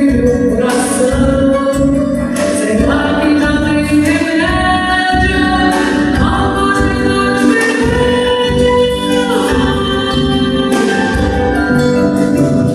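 Live band music: a woman singing over drums and held chords from keyboard and guitar.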